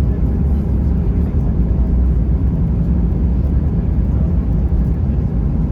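Steady low rumble of cabin noise inside an Airbus A320 on the ground just after landing, from the engines and the airframe rolling along, with a faint steady hum over it.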